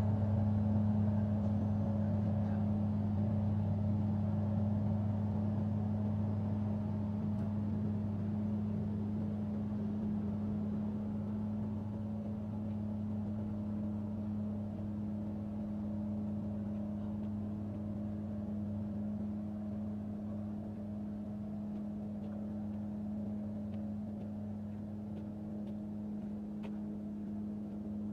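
A vehicle engine running steadily at low speed: a low, even hum that slowly grows a little quieter, with a few faint ticks near the end.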